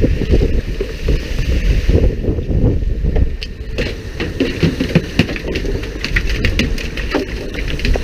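Fishing boat at sea: wind rushing on the microphone over the boat's running noise and the hiss of water sprayers, with scattered knocks and clatter on deck from about halfway through.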